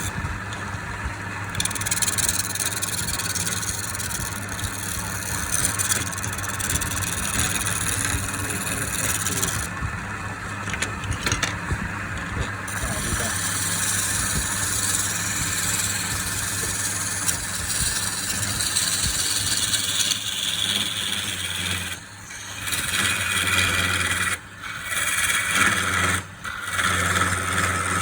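A power tool's motor running steadily as it works wood, with a low hum. The sound dips sharply three times near the end.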